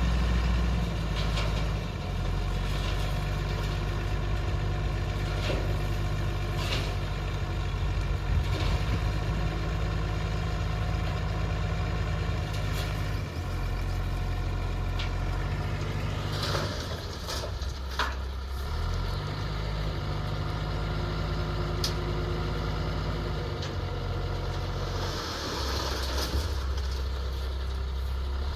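JCB 3DX backhoe loader's diesel engine running, its speed stepping up and down as it works the hydraulics, with scattered metal clanks from the machine. A hiss comes in about three-quarters of the way through.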